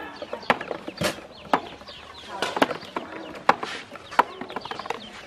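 Plastic toy balls dropped one at a time into an empty plastic basin, each landing with a sharp clack, about one a second. Birds peep and chirp in the background.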